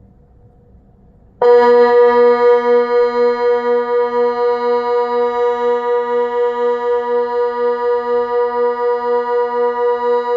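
Kockum Sonics Delta 4 electronic siren switching on suddenly about a second and a half in and holding one steady pitch with a slight throb, about three pulses a second. This is the Swiss water-alarm signal, sounded because of the flooding risk from a dam upstream.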